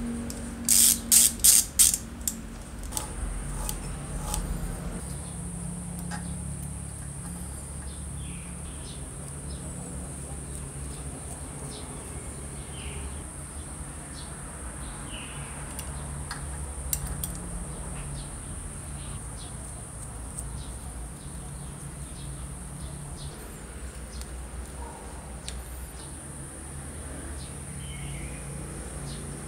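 Small screwdriver and screws clicking against the metal parts of an old electric drill motor as it is screwed back together: a quick run of sharp clicks about a second in, then quieter scattered ticks. A steady high-pitched insect drone runs underneath.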